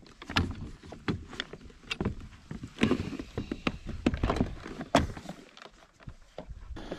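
Irregular knocks, clicks and clatters of fishing gear being handled aboard a small boat, about a dozen sharp hits, the loudest about three and five seconds in.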